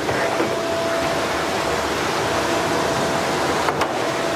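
Steady rush of running water from a hose into a plastic bucket, with a single sharp click about three-quarters of the way through.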